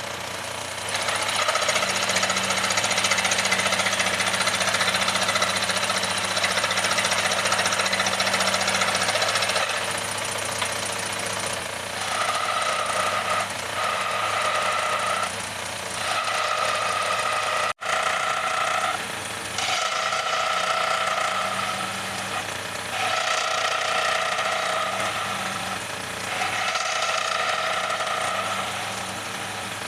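Motor-driven scroll saw running, its thin blade chattering up and down through a wooden blank. From about twelve seconds in, the sound comes in stretches of a second or two with short pauses between, and it drops out for an instant a little past halfway.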